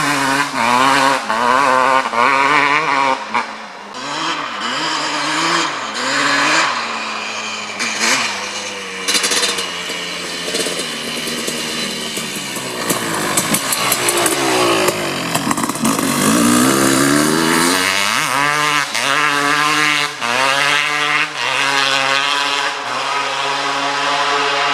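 Kawasaki KX250 single-cylinder two-stroke dirt bike engine, fitted with an FMF Gnarly expansion chamber and Pro Circuit Shorty R-304 silencer, being revved. Its pitch rises and falls over and over, with quick blips at first, then a long drop and climb in the middle.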